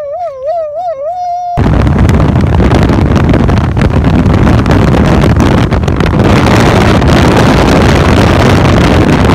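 A voice holds a long sung note with a wavering pitch; about a second and a half in, it gives way to loud, steady wind noise rushing over the microphone of a camera on a motorcycle riding along a highway.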